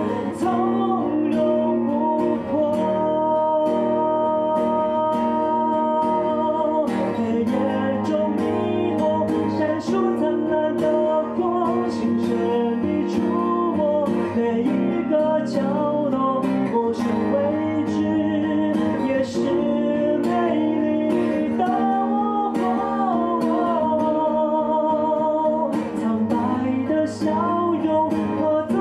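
A man singing a song while strumming an acoustic guitar in a steady rhythm, live into a microphone.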